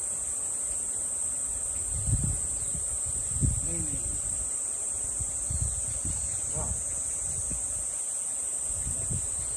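Steady high-pitched insect chorus buzzing without a break, with a few short low bumps on the microphone.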